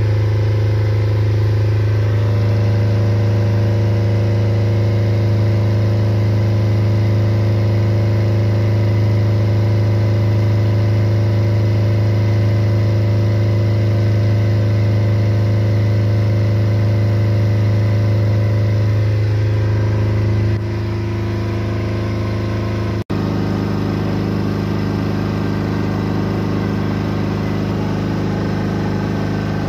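6.5 kW backup diesel generator set running steadily under the inverter's generator signal: a constant low engine hum. It gets a little quieter about 20 seconds in, with a brief dropout a few seconds later.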